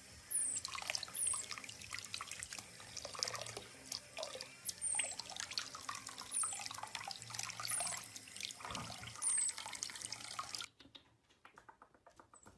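Bathroom faucet running, its stream splashing over a small wet marmoset and the hand holding it, with several short high squeaks. The running water cuts off suddenly near the end.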